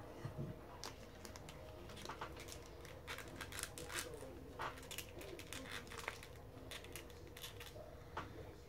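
Faint clicks and rustling of small plastic toy-figure parts being handled and pushed together as the figure's separate arms are fitted on, with irregular little clicks a few times a second.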